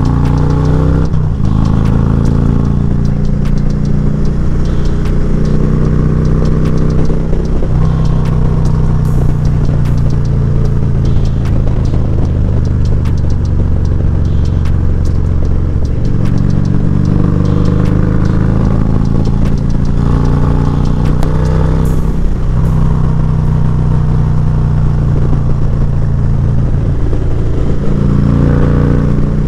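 Harley-Davidson Electra Glide's V-twin engine running under way while riding, its note dipping and picking up again about five times as the throttle changes or gears shift.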